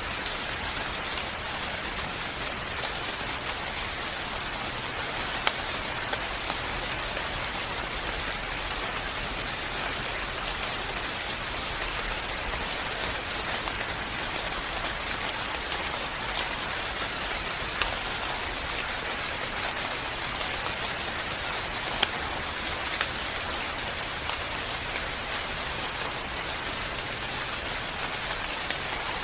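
Steady rain falling, an even hiss with scattered louder individual drops striking a surface.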